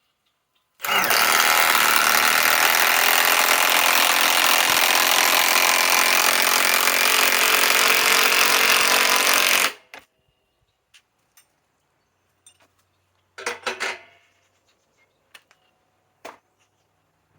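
Milwaukee M18 Fuel Gen 2 mid-torque impact wrench hammering steadily for about nine seconds while driving a 5-inch lag screw, then stopping abruptly. A few seconds later it gives a brief short burst, followed by a few faint clicks.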